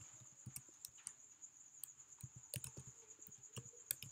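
Typing on a computer keyboard: quiet, irregular keystrokes as an email address is entered.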